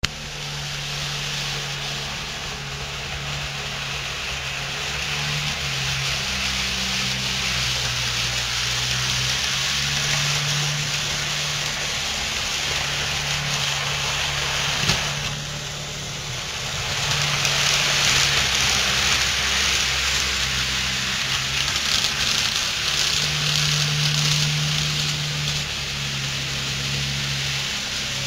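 HO and N scale model trains running on a layout. Steady low motor hum whose pitch shifts now and then, over a steady hiss that dips briefly about halfway through.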